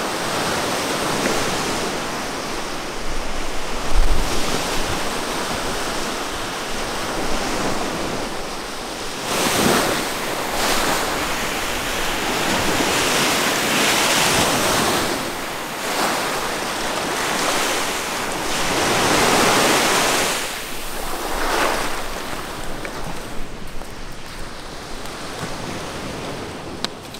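Waves from a large lake breaking and washing up on a sandy beach, a steady surf with several bigger breaks swelling up about ten, fourteen and twenty seconds in. Some wind on the microphone.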